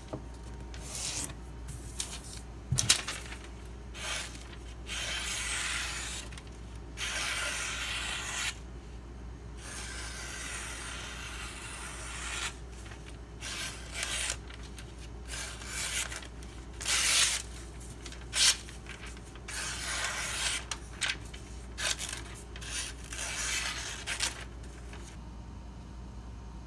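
Freshly sharpened Emerson A100 folding knife (154CM steel) slicing through a printed paper flyer: a series of hissing cutting strokes of varying length, some long and smooth, others short. It is a paper-cutting test of the new edge.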